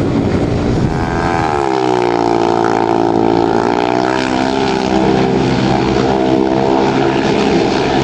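Speedway motorcycles' 500 cc single-cylinder engines running hard on the track. About a second in the engine note dips in pitch, then holds fairly steady.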